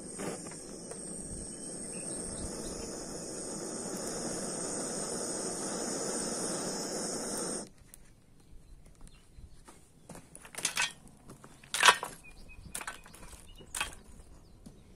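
Gas-cartridge blowtorch burning with a steady hiss as it lights charcoal and kindling, shut off abruptly about halfway through. Then a few sharp clicks and knocks, the loudest about twelve seconds in.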